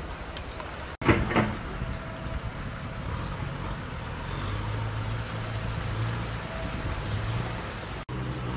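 Outdoor background noise with a steady low engine hum that comes in about halfway through. A short burst of noise follows an abrupt cut about a second in.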